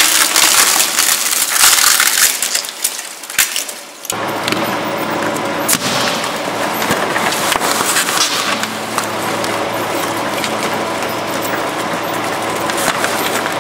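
Twin-shaft shredder crushing smartphones: loud crunching and cracking that thins out into a few separate cracks. After an abrupt cut about four seconds in, the shredder's motor hums steadily while its blades chew a green plastic bottle with continuous crackling.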